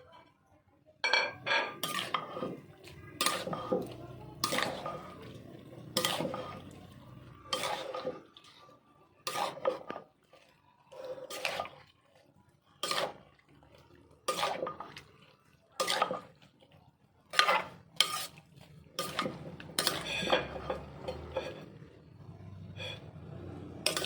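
Kitchen utensils knocking and clinking: sharp ringing strikes about once every second and a half, some in quick pairs, with quieter scraping between them.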